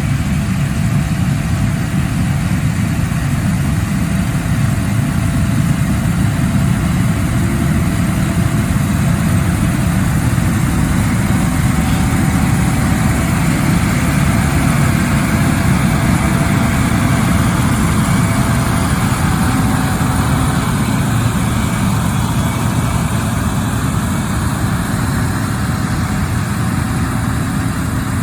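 Gleaner combine running steadily during wheat harvest: a continuous low diesel engine rumble with a faint steady whine above it.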